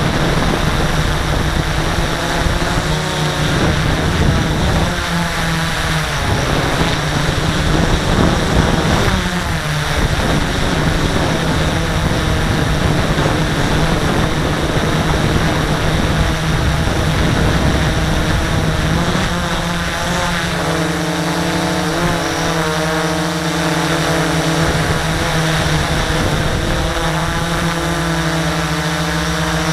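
X650F quadcopter's electric motors and propellers whirring steadily. The pitch slides a few times as the motor speeds change, settling into a new steady hum about two-thirds of the way through.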